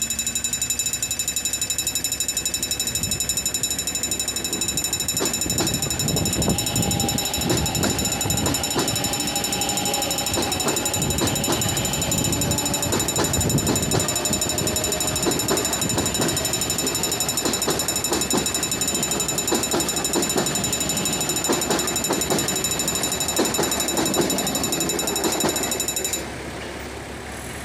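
Level-crossing warning bell ringing rapidly and continuously while an electric commuter train passes, its wheels knocking over the rails from about five seconds in. The bell stops abruptly near the end, once the train has cleared the crossing.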